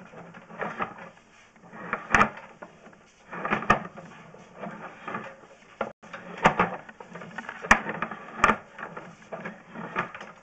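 A sewer inspection camera's push cable is fed by hand into the cleanout, with irregular rubbing and scraping strokes and several sharp knocks as the camera advances down the pipe.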